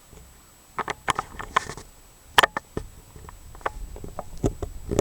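Irregular small clicks, taps and rustles of objects being handled, starting about a second in, with one sharper click midway.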